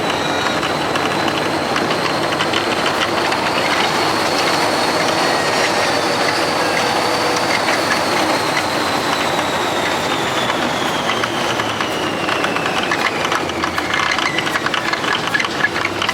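A vehicle running with a steady rumbling noise and a high electric whine that holds, then falls in pitch over the second half as it slows, with some rattling near the end.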